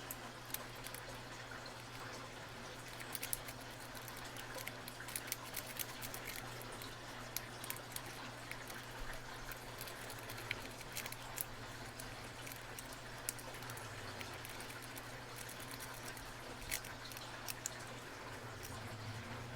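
Faint, irregular light clicking and scraping of a snake rake working the pins of a brass Abus 55/40 padlock under bottom-of-the-keyway tension, over a low steady hum.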